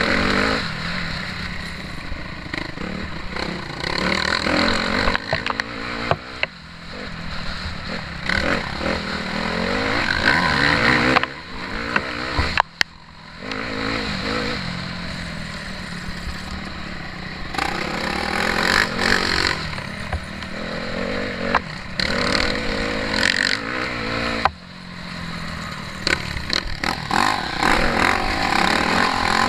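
Motocross bike engine revving up and dropping back again and again as it is raced over a rutted dirt track, heard from a camera on the bike's rider. The engine noise drops out sharply and briefly twice.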